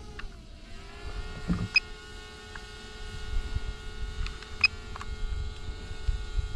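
Quadcopter drone hovering: the steady whine of its propellers with several overtones, dipping and settling in pitch about half a second in, over a low rumble, with two sharp clicks.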